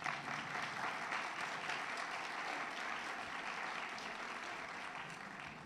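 Audience applauding, a steady clapping of many hands that eases off slightly near the end.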